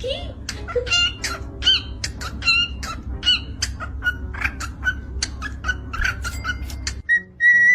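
A parrot calling and chirping in quick succession, with many short squawky, bending notes over a low steady hum. Near the end it changes to a run of short, clear whistled notes on one pitch.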